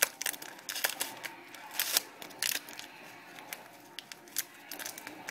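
Plastic packaging being unwrapped by hand, crinkling in quick irregular crackles that are busiest over the first two and a half seconds and sparser after.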